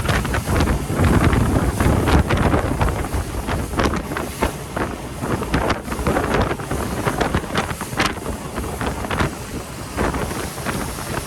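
Wind buffeting the microphone in loud, uneven gusts on an open boat under way.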